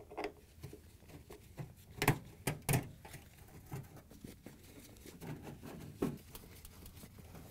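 Hand nut driver backing screws out of a refrigerator's sheet-metal rear access panel: scattered small clicks and metallic taps, with a quick run of sharper clicks about two seconds in and another near the end.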